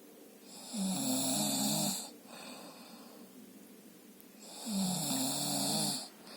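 A sleeping man snoring: two long snores about four seconds apart, each lasting a little over a second, with a softer breath between them.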